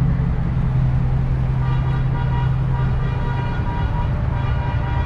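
Pickup truck engines rumbling as the trucks roll slowly past, with a vehicle horn sounding from about a second and a half in, held with a few short breaks.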